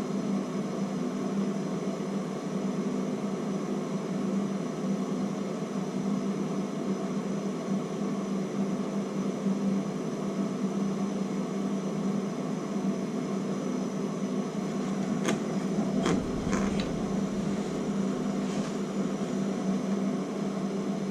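Electric heat gun running steadily, its fan motor giving a constant hum, with a few sharp clicks or knocks about fifteen to seventeen seconds in.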